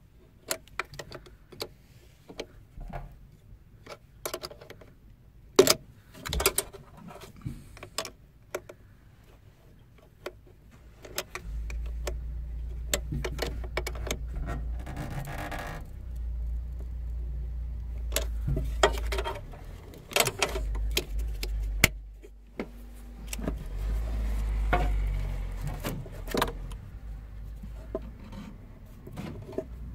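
Clicks and small metallic knocks of a ratcheting spanner working the clamp nut on a car battery's positive terminal, with the plastic terminal cover being handled. About a third of the way in a steady low rumble starts under them, dropping out briefly about three quarters through.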